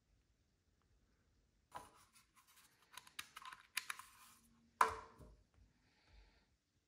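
Hands handling a small plastic air-quality monitor, with a run of clicks and scrapes as its battery back cover comes off, the loudest a sharp knock about five seconds in as it is set down on the stone countertop.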